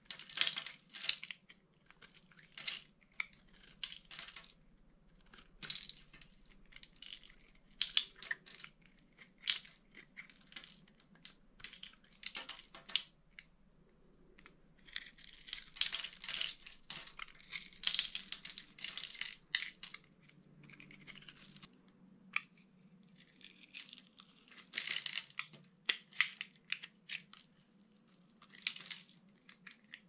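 A dry bar of soap, scored into a grid of small cubes, crunching and crackling as a utility-knife blade and fingertips break the cubes off. It comes in irregular bursts of crackles with short pauses between them, and a few sharp single snaps.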